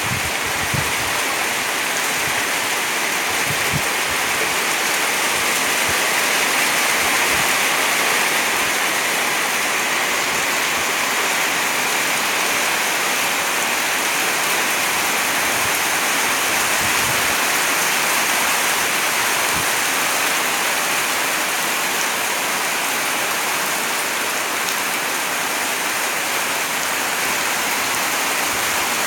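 Heavy rain pouring down steadily: a dense, even hiss of falling water, with a few soft low thumps.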